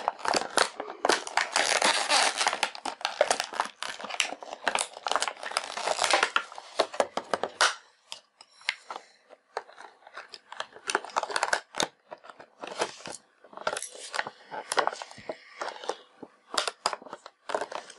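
Stiff clear plastic packaging tray crackling and crinkling as headphones and their cable are worked free of it, dense for the first seven seconds or so, then in scattered crinkles and clicks.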